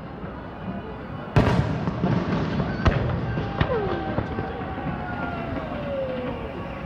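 Aerial fireworks bursting: a loud boom about a second and a half in, a sharp crack about three seconds in, then long falling whistling tones, over a steady background rumble.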